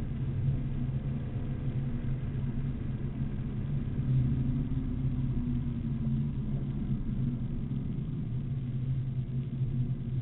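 BMW Z4 M Coupe's straight-six engine running at speed on track, heard from inside the cabin. Its pitch holds fairly steady, with a slight rise and fall near the middle.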